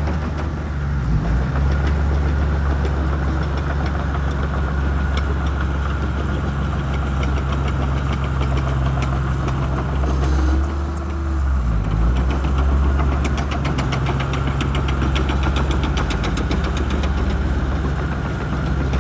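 Shantui crawler bulldozer's diesel engine running steadily at working speed. About halfway through the engine dips briefly, then picks up again. A fast, even clicking runs through the second half.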